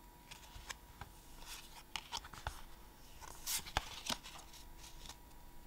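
Pokémon trading cards being handled, slid and flipped against each other: a string of soft rustles and light clicks, the loudest about three and a half seconds in.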